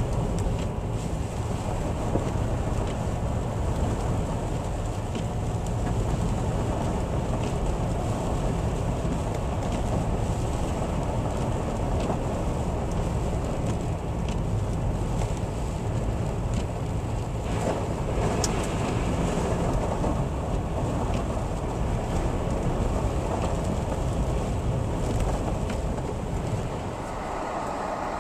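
Steady low rumble of vehicle and road noise, easing a little about a second before the end.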